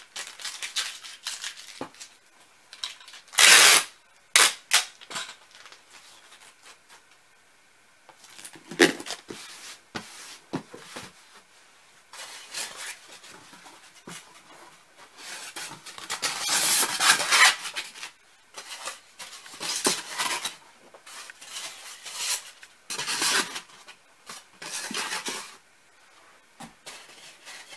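Cardboard shipping box and its foam liner panels being handled and fitted: a run of irregular scrapes, rustles and knocks, with the loudest, a short scrape, about three and a half seconds in.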